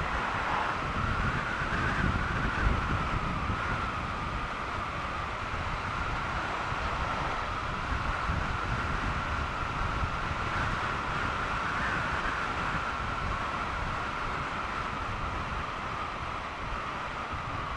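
Triumph Bonneville T120 parallel-twin motorcycle riding steadily at road speed, its engine rumble mixed with wind rushing over the microphone and a steady high whistle.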